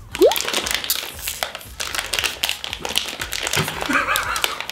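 A plastic snack bag crinkling and tapping as it is handled and opened, over background music. A short rising tone sounds just after the start.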